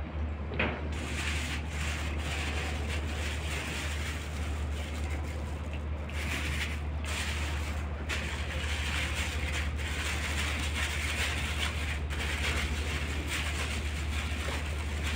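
Puppies chewing and eating from a metal dish, with irregular small mouth and bowl noises over a steady low hum.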